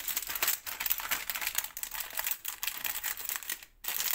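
Plastic snack packet crinkling as it is handled and cut open with scissors, a dense run of small crackles and clicks that stops briefly near the end.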